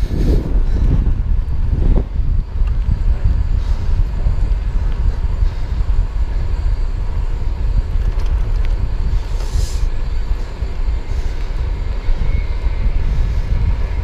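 Wind rumbling on the microphone while riding a bicycle, a loud steady low buffeting, with a couple of short knocks in the first two seconds.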